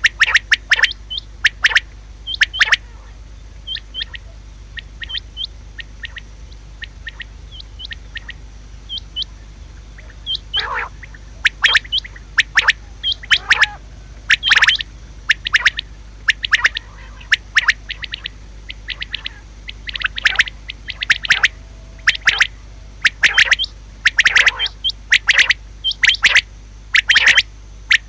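Female common quail calling: a long run of short, sharp chirps in irregular clusters, sparse for the first several seconds, then coming thick and fast from about a third of the way in.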